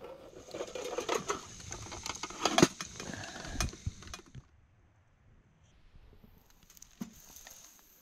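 A foil-covered metal grill-tray lid being handled and lifted off, with rattling, clattering and crinkling for about four seconds, the loudest clank about halfway through, then quiet with a few faint clicks.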